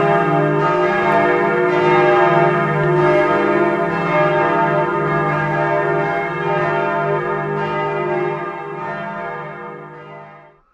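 Church bells ringing, several tones sounding together, dying away over the last couple of seconds.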